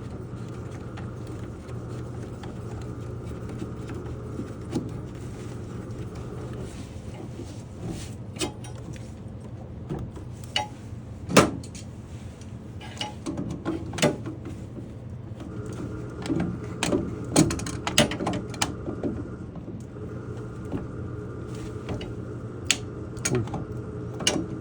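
Scattered clicks and knocks of parts and tools being handled over a steady low mechanical hum, with a sharp knock about eleven seconds in and a faint steady high tone that fades out and later returns.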